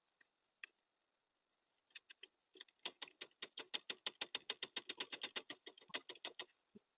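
Ratchet wrench clicking rapidly, about nine clicks a second, for around four seconds from about two and a half seconds in, as bolts are worked loose on a scooter engine. A few scattered clicks come before it.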